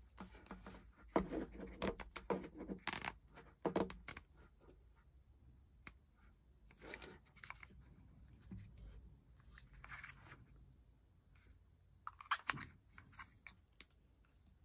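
Handling noise from a Yealink UH36 wired headset: small plastic clicks, rubbing and rustling as the ear cups are swivelled and the cable is moved. It comes in irregular bursts, busiest in the first few seconds and again about twelve seconds in.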